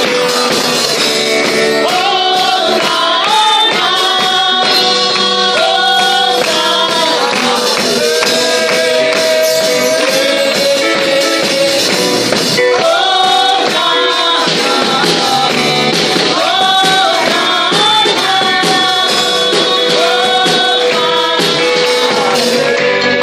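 A young girl singing lead through a microphone with a live band: drum kit, guitar and keyboard, with a held keyboard-like note under the melody and steady jingling percussion on top.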